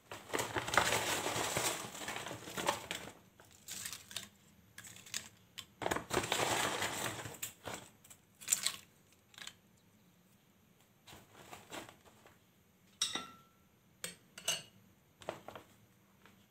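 Crisp fried chips crinkling and crunching as they are crumbled and dropped onto a bowl of noodle soup, in two longer bursts. Then scattered light taps and clinks of a spoon against the glass bowl, one with a short ring.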